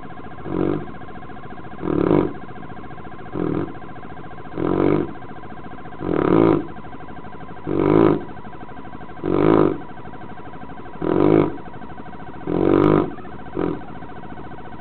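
A sleeping Neapolitan Mastiff snoring, one snore with each breath about every one and a half seconds, some of them shorter and quieter than the rest.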